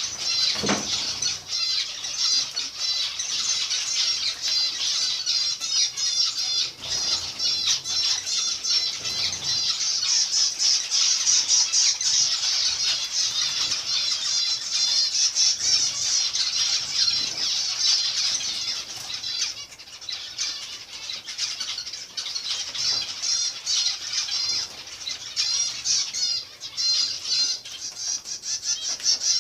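A flock of zebra finches calling together: a dense, continuous chatter of short, high, nasal chirps that thins out for a few seconds a little past the middle, then picks up again.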